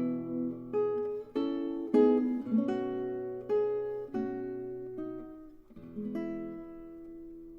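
Background music: acoustic guitar playing a slow piece of single plucked notes and chords, each note ringing out and fading.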